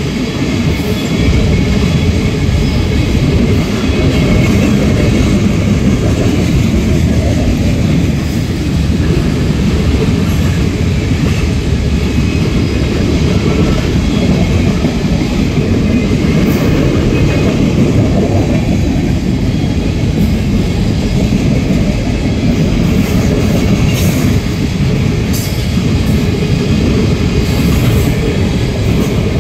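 Train rolling past: a loud, steady rumble of rail cars with wheels clicking over rail joints.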